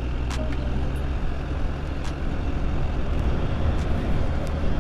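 Hero Xtreme 160R single-cylinder motorcycle riding at steady speed. The engine hum is mixed with wind rumble on the microphone in one steady low drone, with a couple of faint clicks.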